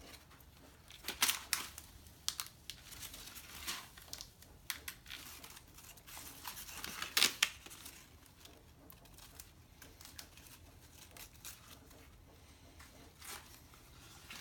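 Dry corn husks being peeled and torn off an ear of maize by hand, in irregular crackling rips and rustles, the loudest about a second in and about seven seconds in.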